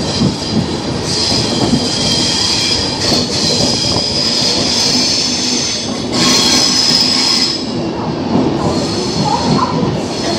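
Express passenger coach rumbling over the rails as it rolls slowly into a station platform, with a high wheel squeal that rises twice, about a second in and again about six seconds in.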